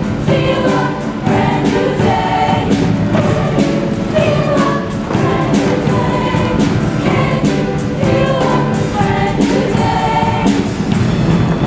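Show choir singing in chorus over musical accompaniment, loud and continuous.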